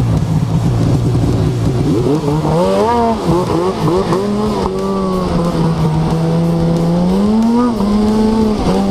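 Snowmobile engine running hard along the trail, its pitch mostly steady and rising briefly a couple of times as the throttle is worked, with a short dip near the end.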